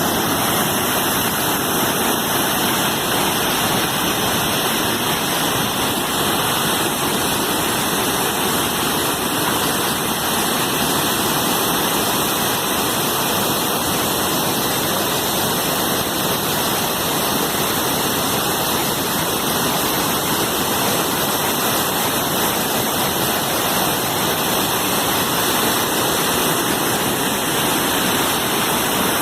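Waterfall: a loud, steady rush of falling water, unchanging throughout.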